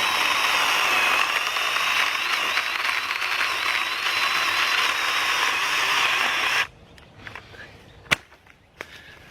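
A mini chainsaw cuts through a thick branch, a steady high motor whine with the chain rasping through the wood. It stops abruptly about two-thirds of the way in, and a single sharp click follows near the end.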